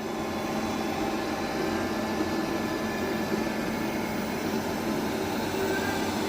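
ABIR X5 robot vacuum cleaner running after being told to start cleaning: a steady whir of its suction fan and brushes with a faint hum.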